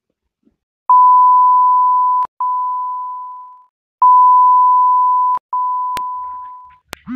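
Electronic beep tone at a single steady pitch, sounding four times in two pairs, each beep fading slightly as it holds. Two sharp clicks near the end.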